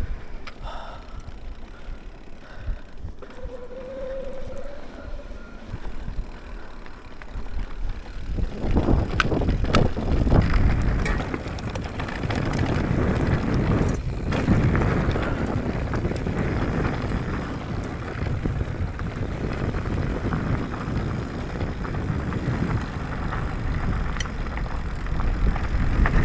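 YT Decoy MX mountain bike riding rough, rocky trail: tyres rumbling over rocks and the bike rattling and clattering, with wind on the microphone. The ride is fairly quiet for the first several seconds, then grows loud and rough from about eight seconds in.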